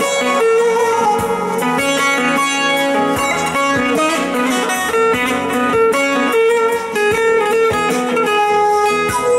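Bağlama (long-necked Turkish saz) plucked with a plectrum in a fast instrumental folk melody, with electronic keyboard accompaniment beneath it.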